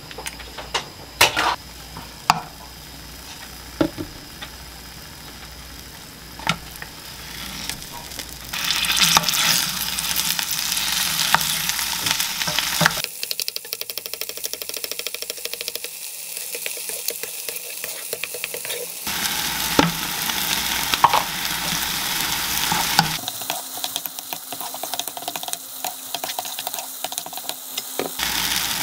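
Egg and soft tofu frying in an oiled nonstick frying pan. A few light clicks and taps come first, then from about eight seconds in a steady sizzle as a wooden spoon breaks up and stirs the egg and tofu, scraping and tapping against the pan.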